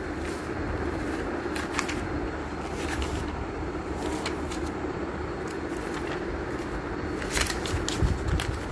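Paper pages of a book being turned by hand: several short, crisp rustles, with a cluster of them near the end, over a steady low hum.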